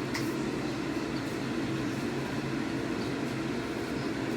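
Steady low mechanical hum, like a fan or appliance motor running.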